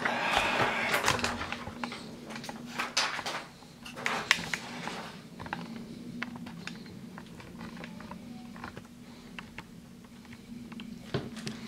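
Handling noise on a desk: a rustle in the first second or so, then scattered light clicks and taps as things are moved about, over a faint steady hum.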